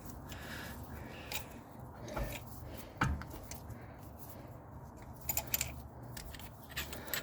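Hand tools and small metal brake parts being handled: scattered clicks and clinks, with a sharper knock about three seconds in and a run of small metallic clicks near the end.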